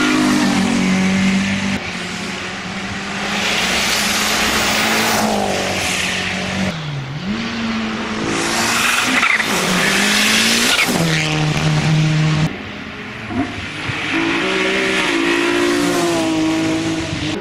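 Race car engines revving hard through a hill-climb slalom chicane. The pitch repeatedly climbs and drops with gear changes and lifts off the throttle, and tyres squeal in the turns.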